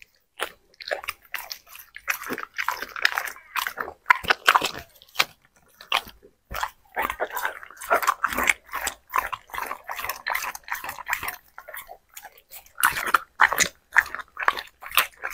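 A dog biting and chewing raw meat taken from a gloved hand: irregular wet chomps and smacks in runs, with short pauses about six and twelve seconds in.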